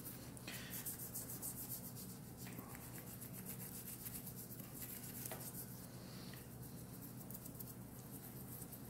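Toothbrush bristles scrubbing quickly back and forth on a de-anodized aluminium part, a faint rapid scratching as the black smut left by the caustic soda is brushed off.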